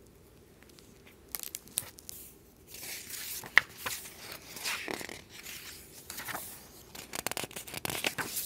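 Hardcover picture book being opened and its pages leafed through: paper rustling with small taps and clicks of handling, starting about a second in.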